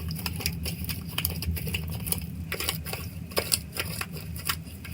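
Sticky homemade slime, made of peel-off face mask and contact lens solution, being kneaded by hand: many quick, irregular squishing clicks, over a steady low hum.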